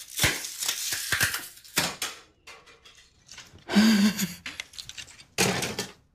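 Plastic compact discs being snapped and broken by hand: a quick run of sharp cracks, then a burst of laughter about four seconds in.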